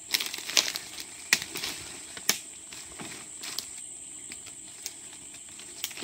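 Footsteps through dry leaf litter and fallen sticks: irregular crunches and twig snaps, the loudest and most frequent in the first two and a half seconds, then sparser.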